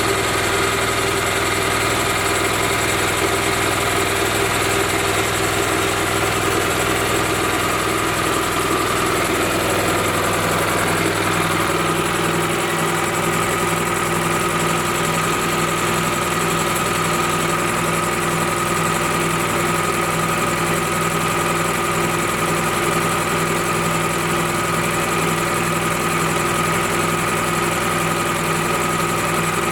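Honda GX390 single-cylinder gasoline engine running steadily on an air compressor, with a slight shift in its pitch about twelve seconds in.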